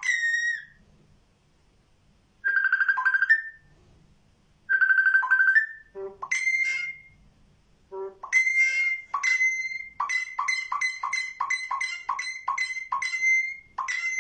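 Pet talking bird imitating a phone ringtone: whistled, electronic-sounding notes in several short phrases, then a quick run of about ten short repeated beeps in the last few seconds.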